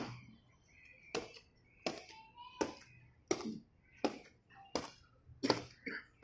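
A marching cadet's boots stamping on paved ground in a steady parade rhythm, one sharp stamp about every 0.7 seconds, the first the loudest.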